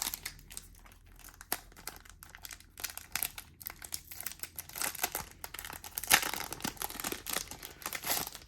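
Plastic card packaging crinkling and rustling in the hands, with scattered sharp crackles and clicks, as a metal trading card is unwrapped.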